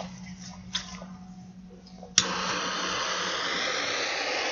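A small ground firework lit on a board: a sharp click about two seconds in, then a steady, even hiss as the fuse and firework burn.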